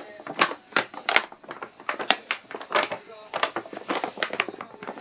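Paper shopping bag crackling and rustling as a cat pushes its way inside, a rapid, irregular run of sharp crinkles.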